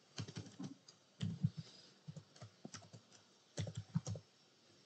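Typing on a computer keyboard: quick clicking keystrokes in four short bursts.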